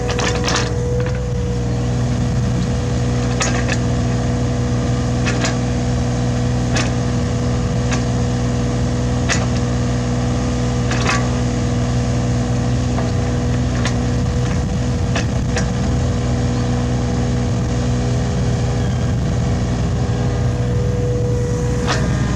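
Hitachi Zaxis 33U mini excavator's diesel engine running steadily while digging, with sharp knocks and clanks every second or two from the working bucket and arm.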